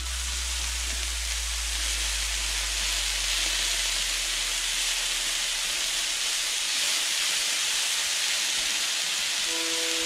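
Sliced cremini mushrooms sizzling in a hot skillet, a steady, even hiss, freshly added to the pan.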